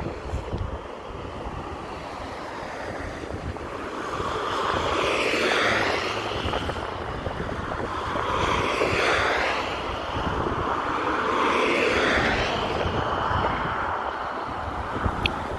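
Jet noise from an Airbus A350-1000's Rolls-Royce Trent XWB engines as the airliner comes in on final approach: a steady rush that swells and fades in slow waves. Wind buffets the microphone throughout.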